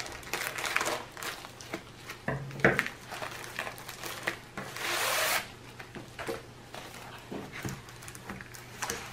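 Scissors snipping open a plastic mailer, then the plastic packaging and a rolled diamond-painting canvas rustling and crinkling as they are handled, with a longer rustle about five seconds in.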